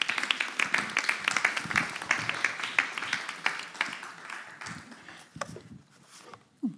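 A congregation applauding: many hands clapping together, thinning out and dying away after about four or five seconds.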